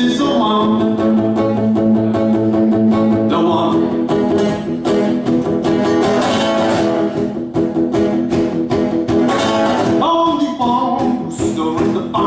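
Music: a song played on strummed acoustic guitar with other instruments and a steady rhythm.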